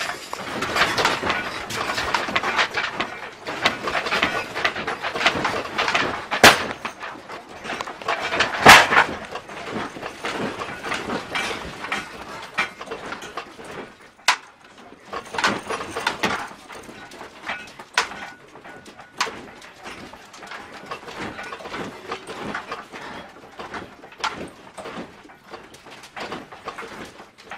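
Household objects rattling, clicking and knocking as the room shakes in an earthquake, with two sharp knocks about six and nine seconds in; the rattling thins out and grows quieter through the second half.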